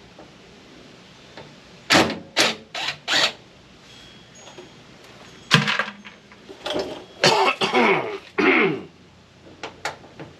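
A man coughing several times in quick succession, then coughing and clearing his throat again a few seconds later.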